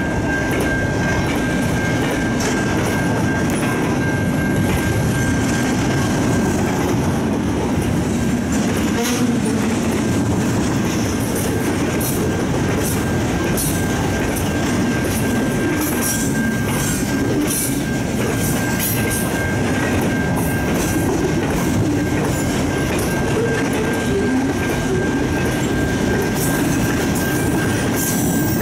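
Freight train of double-stack intermodal container cars rolling steadily past at speed, a dense rumble with wheels clicking over the rail joints. A steady thin high tone runs under it throughout.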